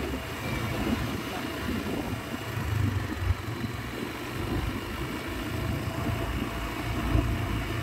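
Vehicle engine running on the road with a low, uneven rumble that swells briefly about three seconds in and grows louder near the end.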